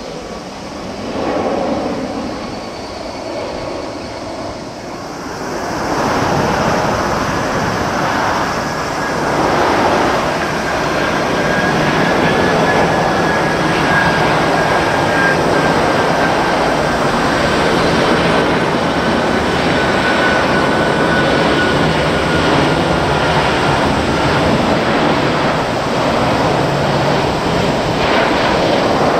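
Jet engines of Boeing 747 airliners flying low on landing approach: a loud, steady rushing roar that grows louder about six seconds in and holds, with a faint high whine gliding slowly down in pitch through the middle.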